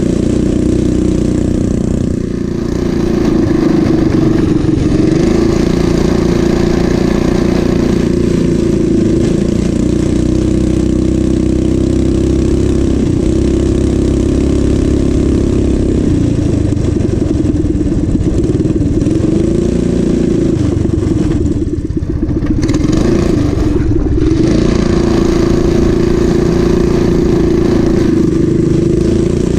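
Coleman CT200U-EX mini bike's small single-cylinder four-stroke engine running steadily at high revs. The pitch sags briefly as the throttle eases off about two seconds in and again about twenty-two seconds in, then picks back up.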